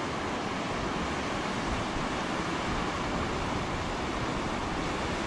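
Steady rush of ocean surf washing against the rocks at the foot of the cliffs, mixed with wind.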